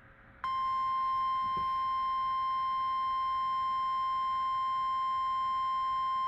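NOAA Weather Radio warning alarm tone, the 1050 Hz signal that comes before a new warning: one steady, unbroken high-pitched tone that starts about half a second in and holds.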